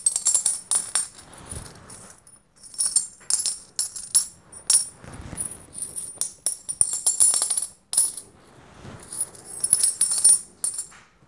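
A handful of coins poured from one hand into the other, clinking and jingling together in several bursts with short pauses between pours.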